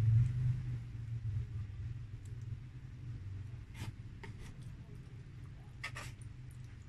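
Close-miked eating: a few sharp, moist mouth clicks and crunches from chewing, about four and six seconds in, over a steady low hum that is loudest at the start.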